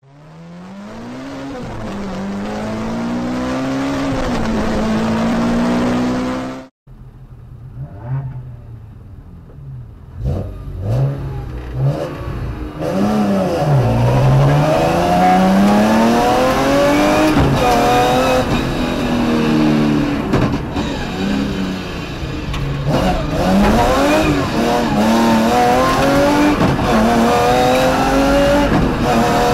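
BMW rally car engine heard from inside the cabin at full throttle, revving up through the gears with a sharp drop in pitch at each shift and brief lifts off the throttle. Before that, an engine sound fades in, rises and falls, and cuts off abruptly about seven seconds in, followed by a few quieter revs.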